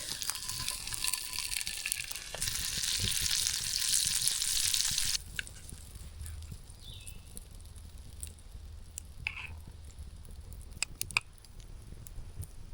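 Food frying and sizzling in a pan over a campfire. The sizzle stops suddenly about five seconds in, leaving a quieter stretch with scattered sharp clicks and a brief chirp.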